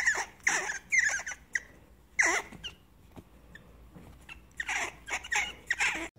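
A pet fox squirrel giving a run of short, high squeaks as it play-wrestles with a hand, in two runs with a lull in the middle.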